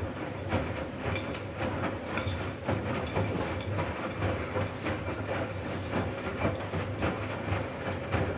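Arçelik front-loading washing machine tumbling a load of laundry in water during the intermediate rinse: the drum motor runs with a steady low hum and a whine, over irregular sloshing and the soft thumps of wet clothes dropping in the drum.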